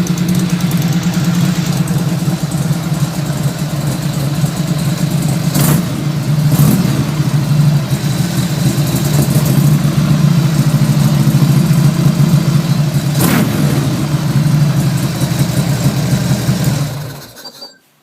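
1997 Buell M2 Cyclone's air-cooled V-twin running through a custom exhaust with a MagnaFlow hot-rod muffler, a steady loud idle that swells a little in the middle. It cuts off near the end.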